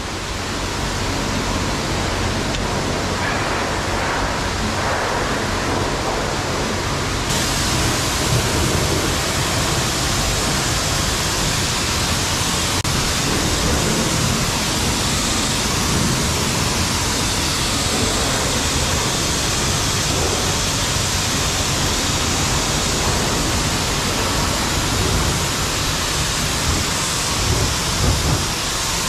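Steady hiss of high-pressure water spraying as a truck is washed, turning brighter about seven seconds in.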